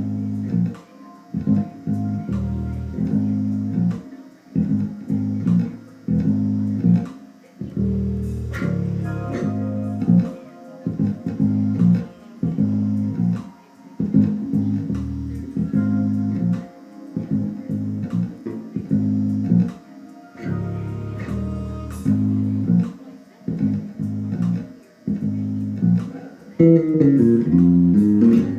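Unaccompanied electric bass guitar played fingerstyle: phrases of low plucked notes with short gaps between them, ending in a quick run of higher notes near the end.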